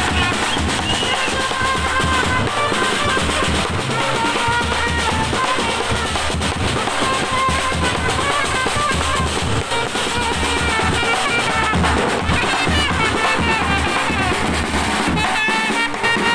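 Street brass band playing: trumpets carry the tune over a steady, loud beat of big drums.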